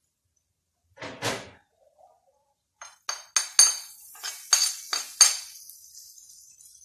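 A metal spatula clinking sharply against a small ceramic plate, about eight ringing strikes in quick succession, as food is scraped off the plate into the wok. A faint sizzle from the frying paste in the wok follows.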